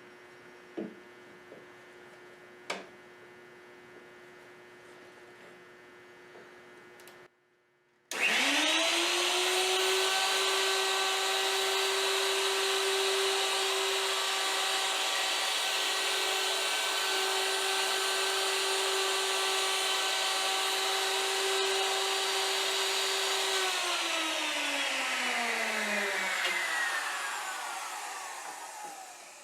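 A high-speed electric router switches on about eight seconds in, spins up quickly and runs at a steady high pitch for about fifteen seconds on a cleanup pass through a spline slot. It is then switched off and winds down with falling pitch. A few light clicks come before it starts.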